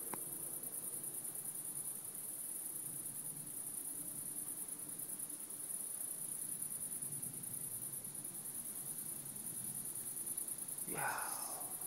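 Crickets chirping in a dense, steady, high-pitched pulsing chorus. A short vocal sound comes near the end.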